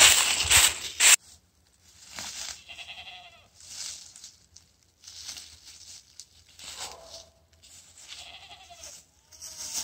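Footsteps running through dry fallen leaves, loud crunching that stops abruptly about a second in. Then slower, softer crunching steps through the leaves while goats bleat about four times.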